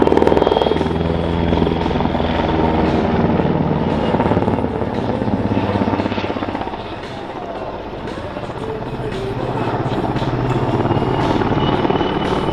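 PZL W-3 Sokol helicopter in display flight: main rotor beating and engines running, with a high turbine whine. The sound fades somewhat a little past the middle and grows louder again near the end as the helicopter manoeuvres.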